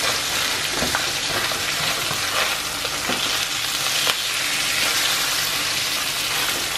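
Salmon steaks sizzling steadily in a frying pan, with a few short scrapes and taps of a spatula as they are turned.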